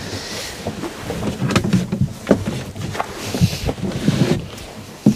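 Wooden slats of a caravan's pull-out bed base knocking and clattering as the bed is handled to be folded back in, with several sharp clacks and some rustling.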